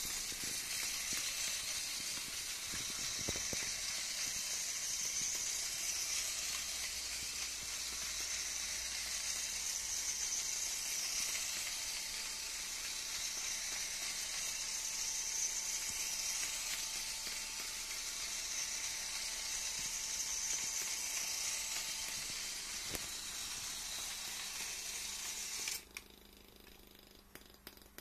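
Small LEGO train's motor and wheels running on plastic track: a steady whirring hiss that swells and fades every few seconds. It cuts off suddenly near the end as the train stops.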